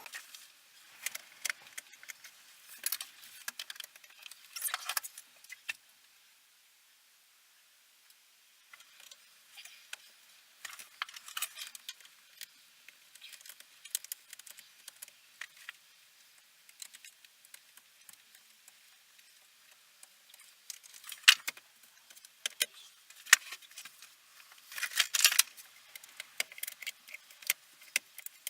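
Hand tools and small metal parts clicking and rattling, in irregular bursts with a short still pause about six seconds in, while a steering wheel is being taken off with a screwdriver and socket.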